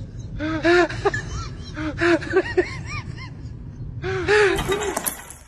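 Small dog yapping in short, high-pitched yelps, in three quick bursts of several yelps each.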